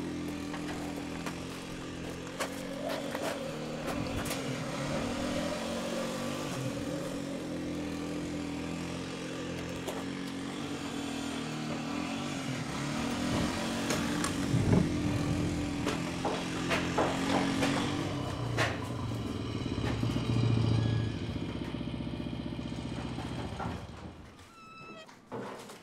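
A motor vehicle engine running steadily, with scattered knocks and clanks over it. The engine sound drops away near the end.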